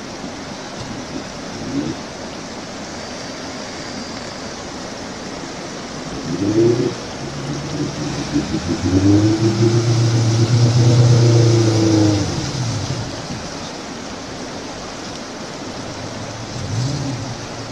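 Rushing river water, with a small off-road 4x4's engine revving under load as it wades through the rocky riverbed: the revs climb about six seconds in, hold high for a few seconds, then fall away.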